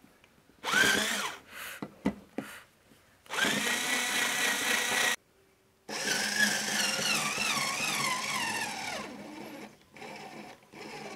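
Small 3.6 V cordless screwdriver motor driving a screw into mahua wood in three runs: a short burst, a steady whine, then a longer run in which the whine wavers and sinks in pitch as the motor bogs down under load. The tool has too little torque (about 3.5 N·m), and the 8 mm screw goes in only a little.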